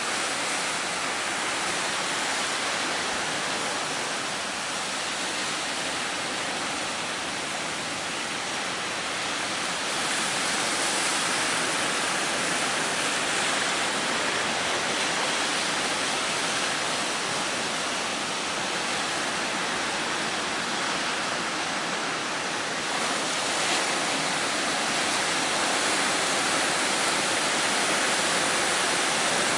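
Strong wind and high sea surf making a steady, unbroken rushing noise.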